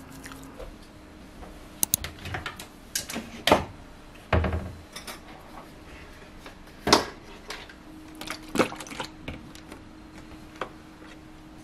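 Scattered clicks and knocks, with one duller thud, as a plastic blender cup is taken from a kitchen cabinet and set down on a countertop. A faint steady hum runs underneath.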